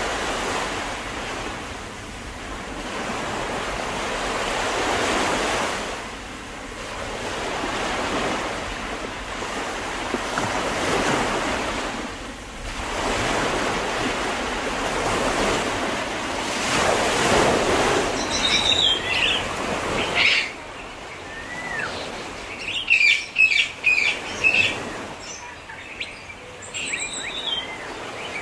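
Sea waves washing ashore, swelling and fading every few seconds. About two-thirds of the way in, small birds start chirping in quick, high calls over the surf.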